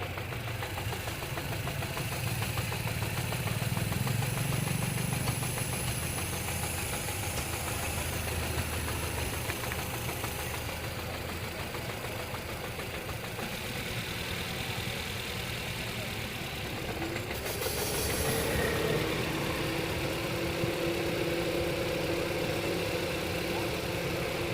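Car engine idling while it is checked for a misfire. About seventeen seconds in there is a short sharp burst, then a whine rises and holds steady.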